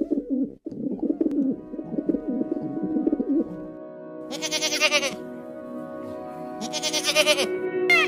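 Pigeon cooing for the first three seconds or so, followed by a goat bleating twice with a wavering voice, over steady background music.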